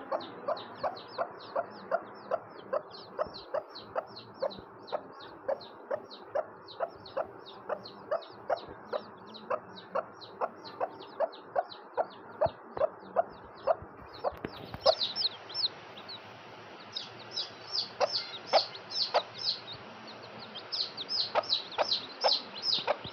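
Newly hatched chicks peeping in a steady stream of short, falling chirps, about three a second, over a broody hen's low clucking. About fifteen seconds in, the peeps grow louder and shriller.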